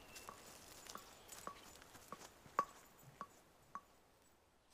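Footsteps of a hiker on a leaf-strewn dirt forest trail, faint crunching steps at about two a second, fading out near the end.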